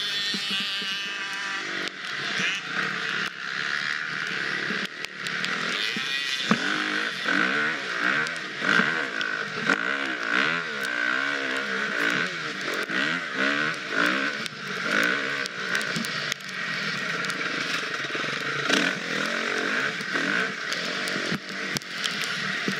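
Husqvarna FX 350 four-stroke single-cylinder dirt bike engine being ridden off-road, its pitch rising and falling again and again with the throttle. Sharp knocks and clatter sound over it throughout.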